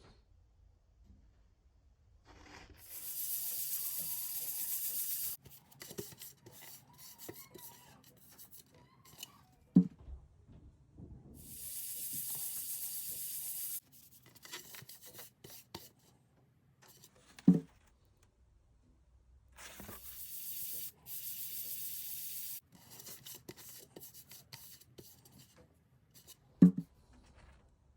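Fine-grit sandpaper being rubbed by hand over the lacquer of a drum shell while a scratch is flatted out. There are three steady hissing passes of two to three seconds each and lighter scratchy rubbing between them, and a short sharp knock follows each pass.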